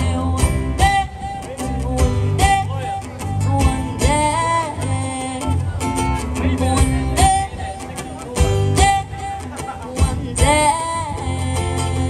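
Small live band playing through a PA: strummed acoustic guitar and bass guitar keep a steady beat under a lead melody that bends in pitch. No words are sung in this stretch.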